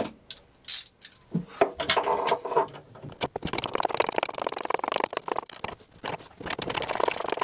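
Socket ratchet wrench working the nuts on rudder hardware. A few sharp metal clinks and knocks come first, then about four seconds of fast, continuous ratchet clicking.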